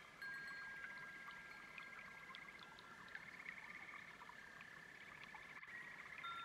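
Faint chorus of frogs and toads calling, a dense fast-pulsing trill with long held high notes overlapping throughout.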